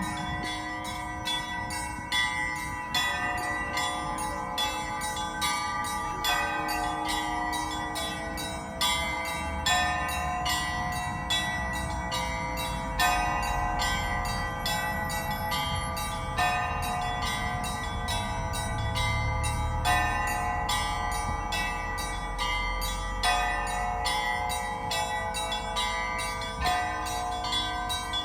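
Church bells ringing together: small bells struck rapidly, about four strokes a second, over a heavier bell struck about every three seconds, the tones overlapping as they ring on.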